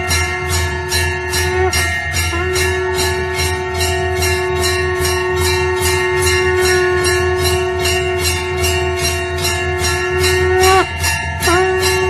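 Temple bell rung rapidly and evenly, about four strokes a second, over a steady held tone. The held tone dips in pitch and breaks off briefly near the end, then resumes.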